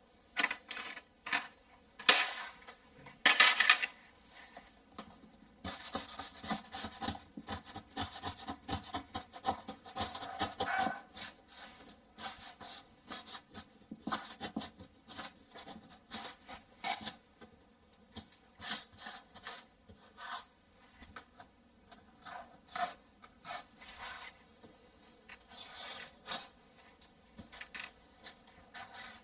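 Irregular scraping and rubbing strokes of hand-tool work on plasterboard, short uneven strokes with brief pauses between them, the sharpest a few seconds in.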